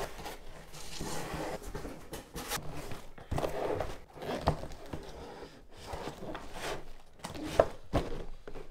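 Cardboard boxes being handled: a shoebox scraping and rustling against the sides of a larger shipping carton as it is lifted out and set down on a table, with a few light knocks.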